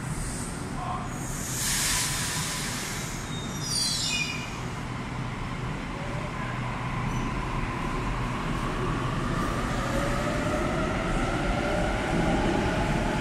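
Sydney Trains Waratah double-deck electric train departing a platform. A hiss of air comes about two seconds in and a brief high falling squeal about four seconds in. Then the traction motors whine, rising in pitch as the train accelerates away.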